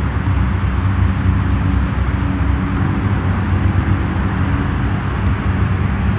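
A steady, loud low engine drone with a hum holds through the whole stretch. No putter strike stands out above it.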